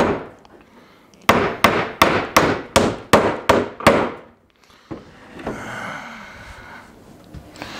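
Hammer striking a nail into a cedar fence-picket board: about eight quick blows at roughly three a second, followed by a softer steady noise for a couple of seconds.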